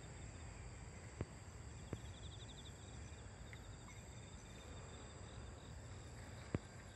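Night insects chirping in rapid pulsed trills over a low steady rumble, with a few sharp clicks, the loudest near the end.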